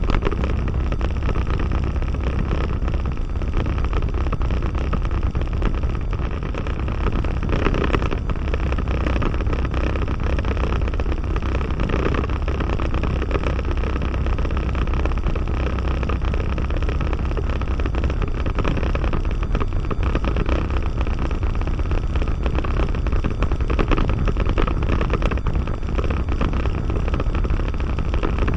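Diamond DA20-C1's four-cylinder Continental IO-240 engine running steadily at low taxi power, a constant low rumble heard from inside the cockpit.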